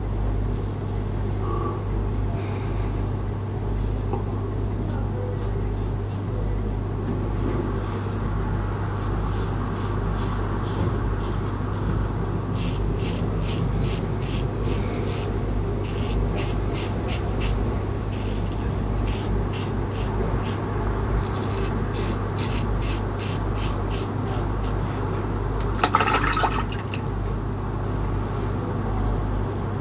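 Karve Christopher Bradley closed-comb safety razor with a Nacet blade shaving lathered stubble: a long run of short, crisp scraping strokes over a steady low background hum. One brief louder clatter about 26 seconds in.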